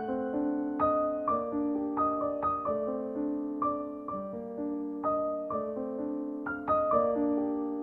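Background solo piano music, notes struck one after another and left to ring out.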